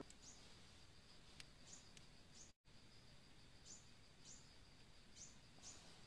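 Faint outdoor ambience: a steady high insect drone with short bird chirps every second or so, a couple of faint clicks, and a brief cut to silence about two and a half seconds in.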